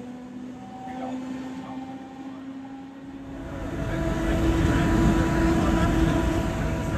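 Historic electric tram running, heard from the driver's cab: a steady motor whine in several tones over a low rumble. About three seconds in, a louder, deeper rumble with a steady hum takes over.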